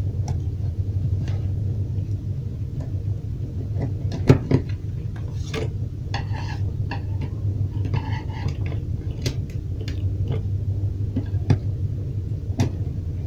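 Screwdriver and fingers clicking, tapping and scraping at the screw terminals of a Siemens contactor while a wire is fastened to its auxiliary contact terminal 13, over a steady low hum. The sharpest click comes about four seconds in, with scratchy rubbing a little later.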